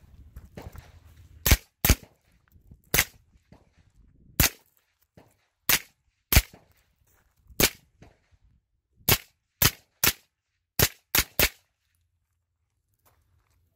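A suppressed 9mm AR-style pistol with an Xcaliber Seafire Diamond suppressor fires about thirteen single semi-automatic shots at an uneven pace. Some come spaced a second or more apart, others in quick runs of two or three.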